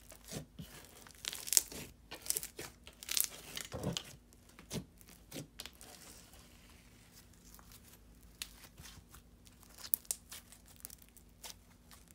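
Thick white fluffy slime being pressed, poked and stretched by hand: irregular sticky crackles and small pops as the stiff slime tears and squishes. The crackling is busiest in the first four seconds, thins out around the middle, then picks up again.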